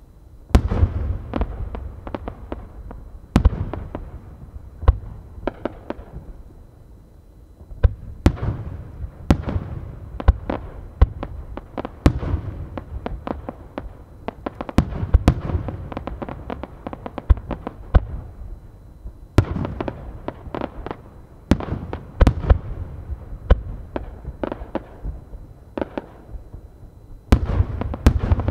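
Aerial firework shells bursting in quick succession: sharp booms every second or two, with crackling and a low rumble of echoes between them.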